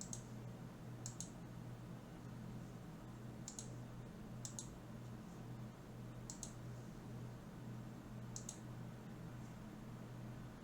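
Computer mouse clicks, one every second or two, each a quick press and release, over a steady low electrical hum.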